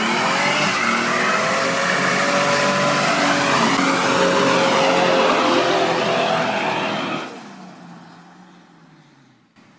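A car doing a burnout: the engine is held high in the revs while the spinning tyres squeal. The sound fades away over the last two seconds or so.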